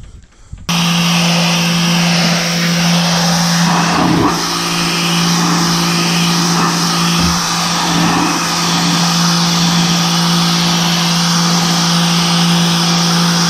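Electric power cleaning tool running steadily while it cleans a boat hull: a steady motor hum under a loud hiss. It starts suddenly about a second in and stops just before the end.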